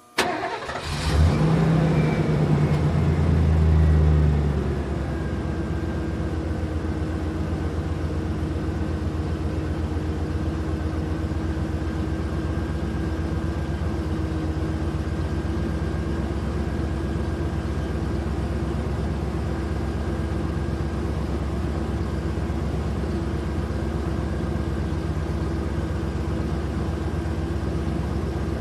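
Vehicle engine starting and revving hard for about four seconds, then settling into a steady idle.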